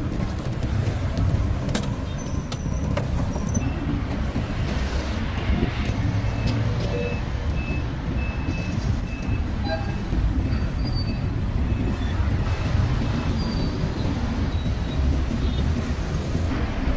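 Street traffic noise: a steady low rumble of passing vehicles. A few sharp clicks come in the first few seconds, and a short run of high, evenly spaced beeps comes partway through.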